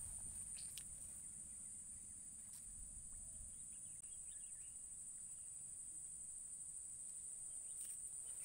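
Steady, high-pitched insect buzz from a chorus of insects in the swamp grass, with a few faint clicks now and then.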